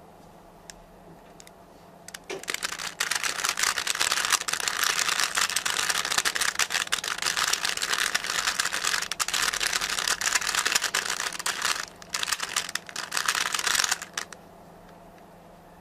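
Rubik's cube being twisted rapidly by hand to scramble it, a dense run of plastic clicks and rattles that starts about two seconds in, breaks off briefly and stops about two seconds before the end.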